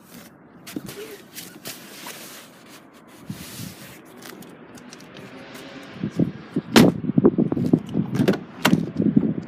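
A scatter of sharp clicks and knocks, then, from about six seconds in, a dense run of heavy irregular thumps.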